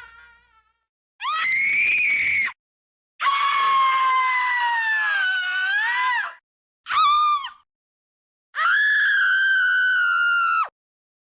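A run of four separate, high-pitched human screams with dead silence between them: a short rising one, a long one that slides down in pitch and wavers at its end, a brief yelp, then a long, steady one that cuts off sharply.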